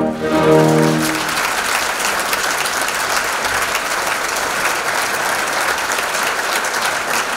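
An orchestra's final chord rings out and dies away in the first second, as a theatre audience breaks into steady applause.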